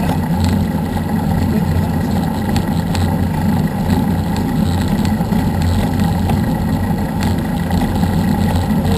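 A vehicle travelling at a steady speed: a steady low engine hum under a constant rush of road and wind noise.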